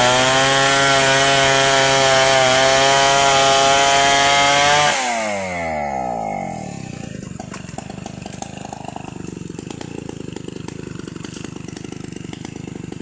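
Two-stroke chainsaw held at high revs for about five seconds, then let off, its pitch falling away to a steady, quieter idle.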